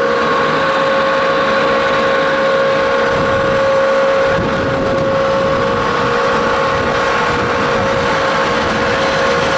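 Wood sawdust pellet line running: the electric motors of the belt conveyor, the feeder and the pellet mill, a steady whine over dense mechanical noise.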